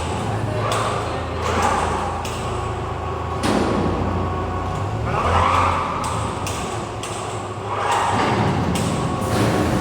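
Industrial equipment of a copper tilting furnace, giving a steady low hum. Repeated knocks and thuds and several swells of rushing noise sound over it.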